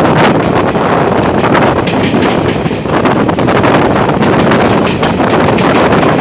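Loud, steady wind buffeting the microphone on a passenger train at speed, with the train's running noise underneath.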